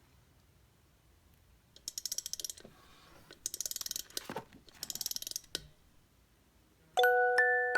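Three short bursts of rapid ratcheting clicks from a small mechanism, each under a second long. Bell-like chime music comes in near the end.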